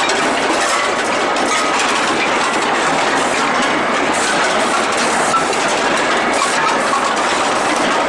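Steady din of a steel-ball hot-rolling line running: a dense, noisy clatter sprinkled with small metallic clicks.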